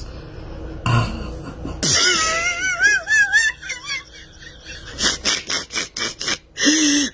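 People laughing: a high, wavering laugh about two seconds in, then a run of short, breathy laughs near the end.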